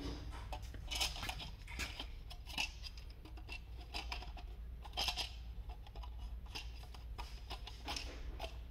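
Hard plastic parts being handled, giving scattered light clicks and rattles: a steering-column cover and an indicator stalk switch assembly.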